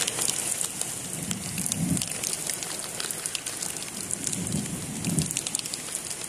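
Steady rain falling on wet pavement, with many sharp raindrop ticks close by.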